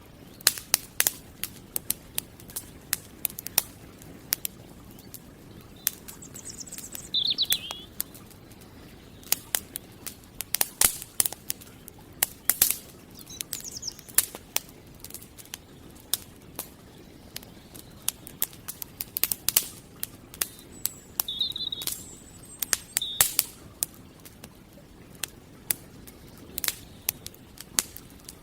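Campfire crackling, with irregular sharp pops and snaps over a low steady hiss. Small birds give short high chirps every so often.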